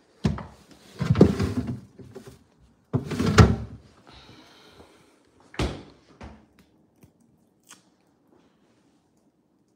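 Refrigerator door opened and shut, with knocks and the rattle of bottles in the door shelves: several sharp clattering bumps, the loudest about a second and three and a half seconds in, then a single thud at about five and a half seconds.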